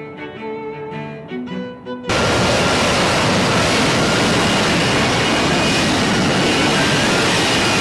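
Background string music, cut off abruptly about two seconds in by the loud, steady jet noise of an F-35B hovering on its Pratt & Whitney F135 engine and shaft-driven lift fan: a dense rush with a few steady high tones in it.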